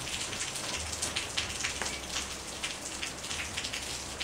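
Persian cat scratching and digging in granular cat litter in a plastic litter box to bury its waste: an irregular, gritty crackle of litter grains being raked and pattering against each other.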